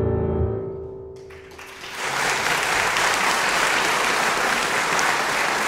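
The last chord of a solo piece on a grand piano dies away, its low notes cut off within the first second. Then an audience breaks into applause, starting thinly and clapping fully from about two seconds in.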